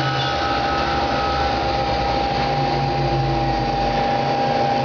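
Mazak Quick Turn 20 CNC lathe spindle running at its top demonstrated speed of 4000 RPM, a steady whine over a loud machine hum.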